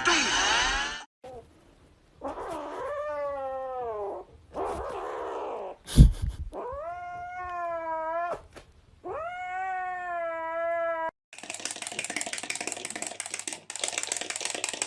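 A domestic cat giving three long, drawn-out meows, with a sharp knock about six seconds in. Rapid clattering takes over near the end.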